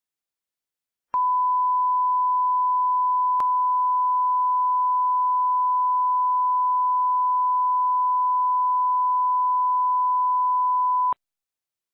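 Broadcast line-up test tone: a steady 1 kHz tone played with colour bars as the reference for setting audio levels. It starts abruptly about a second in and cuts off sharply about ten seconds later, with a faint click a couple of seconds after it starts.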